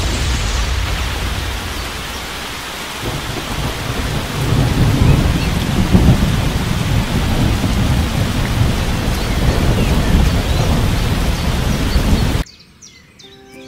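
Heavy rain with rolling thunder; the thunder rumble swells a few seconds in and stays loud. It cuts off abruptly near the end, where light music begins.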